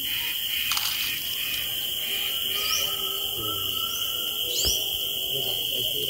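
Steady, high-pitched drone of insects in a field, with three short rising bird chirps over it.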